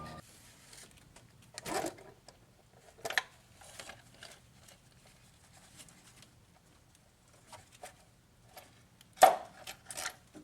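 Scattered short knocks, clicks and light scrapes of hand tools and engine parts being handled while a valve cover and its gasket surface are cleaned. A few soft knocks come in the first four seconds, and the loudest, sharpest click about nine seconds in, followed by another a moment later.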